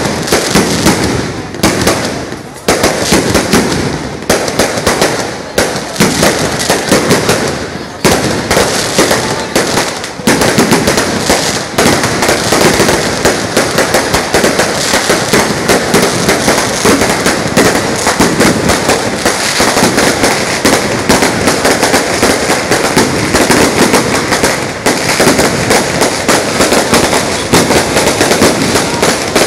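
Strings of firecrackers going off in a dense, continuous crackle of rapid bangs, with a few brief lulls in the first ten seconds.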